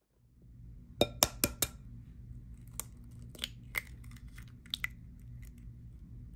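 An egg is rapped four times in quick succession against the rim of a glass mixing bowl. Then come a few lighter cracks and clicks as the shell is broken open.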